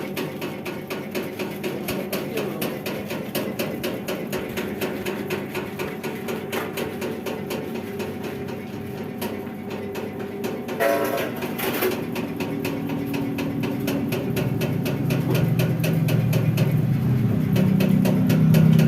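Flour sifting machine running, its sieve shaking with a fast, even, rattling clatter. A low motor hum grows louder in the last few seconds.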